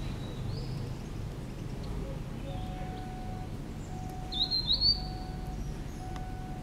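Birds chirping in trees: a short high call about half a second in, then two quick, high rising chirps about four and a half seconds in, which are the loudest sounds. Under them run a faint short tone repeating about once a second and a steady low background rumble.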